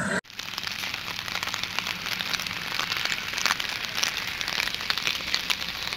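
Steady rain: a continuous hiss with many small drops ticking irregularly through it.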